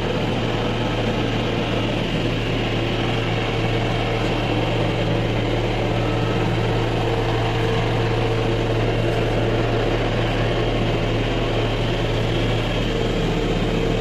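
Cotton candy machine running: its motor and spinning head give a steady, unchanging hum as sugar floss is spun out into the steel bowl.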